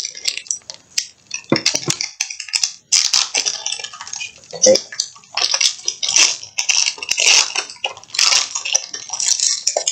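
Foil wrapper of a Pokémon card booster pack crinkling and tearing as it is ripped open by hand, in irregular bursts. Near the end it rustles as the cards are pulled out of the open pack.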